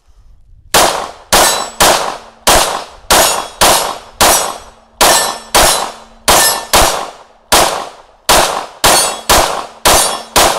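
Rapid string of about seventeen 9mm pistol shots, roughly two a second, from a Sig P365 Macro TacOps with a Faxon Firearms threaded barrel and compensator, firing 115-grain MagTech ammunition. The compensated pistol cycles through the whole string without a malfunction on its stock recoil spring and guide rod.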